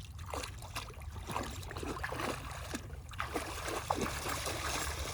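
Pond water splashing and plopping irregularly as a dog wades and plays in the shallows.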